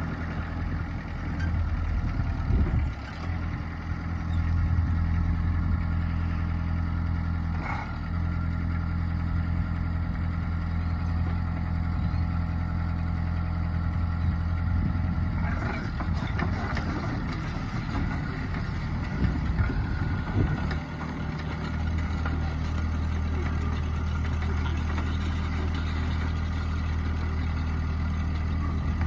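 New Holland EC35 mini excavator's diesel engine running steadily, with a clunk about eight seconds in. From about halfway through it runs busier and rougher for several seconds as the machine moves, then settles back to a steady run.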